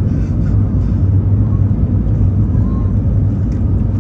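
Airbus A320neo cabin noise heard from a seat over the wing in flight: a loud, steady low rumble of the engines and airflow.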